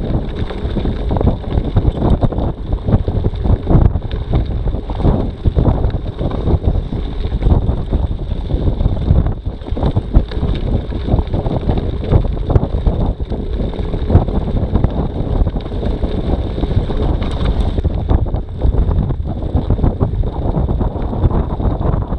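Heavy wind buffeting the microphone over the rattle of a mountain bike rolling fast downhill on a gravel road, with many small knocks and clatters from the frame and tyres on the loose surface.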